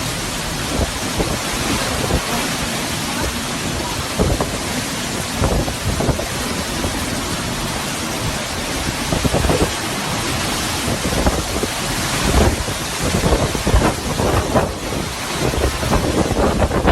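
Hurricane-force wind and driving rain: a steady dense rush with irregular low gusts buffeting the microphone, growing stronger and more frequent in the second half.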